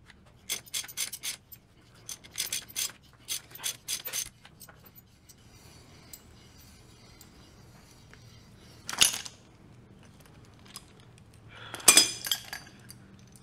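Three-jaw gear puller being worked on a helical gear of a ZF S5-42 manual transmission: a run of quick metallic clicks and clinks as its screw is turned, then a single sharp metal click about nine seconds in and a short cluster of clinks near the end.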